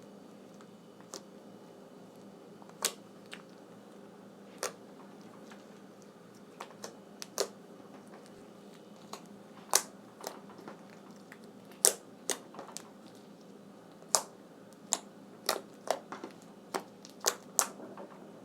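Slime being worked by hand, giving irregular sharp clicks and pops that come more often in the second half.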